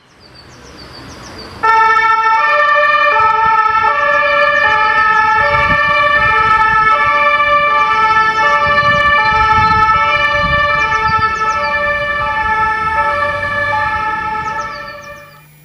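Two-tone siren alternating between two steady pitches about every 0.7 s. It comes in suddenly and loud after a rising hiss, and fades out near the end.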